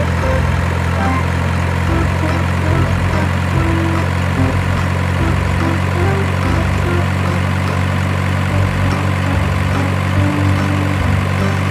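Simulated diesel truck engine sound, a steady low idle-like running loop from an RC toy dump truck's sound effects.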